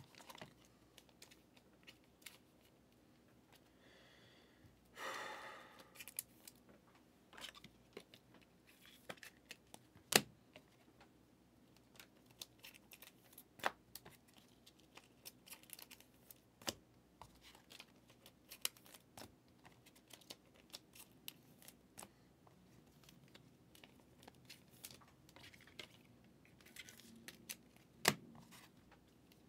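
Faint handling of football trading-card packs and cards: a short rustle of pack wrapper about five seconds in, and scattered light clicks and taps as cards are sorted and set down.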